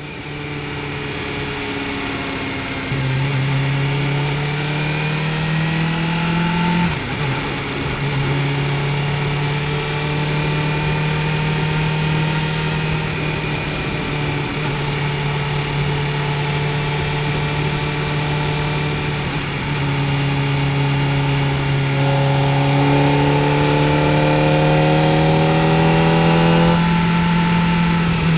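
Kawasaki Ninja ZX-4R's 399 cc inline-four engine pulling the bike along, its pitch climbing slowly under throttle and then dropping sharply on upshifts, about seven seconds in and again near the end.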